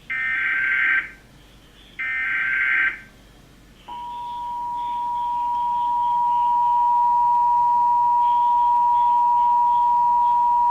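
Emergency Alert System broadcast: two one-second bursts of screeching SAME header data, about two seconds apart, then about four seconds in the EAS two-tone attention signal (853 and 960 Hz together) starts, fades up over a few seconds and holds as a steady loud tone.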